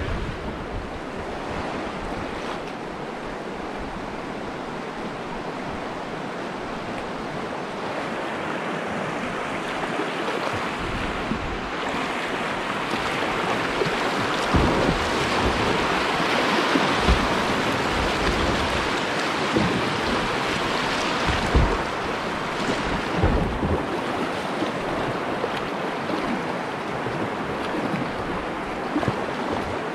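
Steady rush of river water running through a small rapid, growing louder in the middle, with a few short low thumps.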